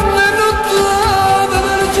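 Background music: a melody of long, wavering held notes over a steady beat of about two pulses a second.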